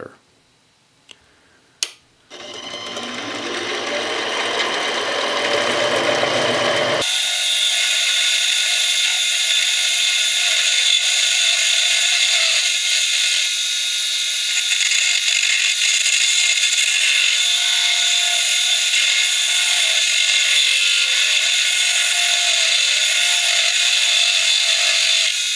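Central Machinery 7x10 mini lathe: a click, then the spindle motor starting up with a whine that rises in pitch as it gathers speed. About seven seconds in the sound switches suddenly to a steady, high-pitched whir: the lathe running and cutting a turning pass, played back at six times speed.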